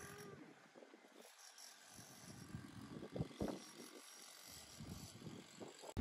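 Faint outdoor ambience with a few soft knocks and rustles, loudest around the middle.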